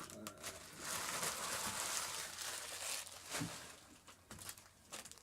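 Foil wrapper of a Topps Chrome football card pack being torn open and crinkled: about two seconds of dense crinkling in the middle, with a few short rustling clicks before and after.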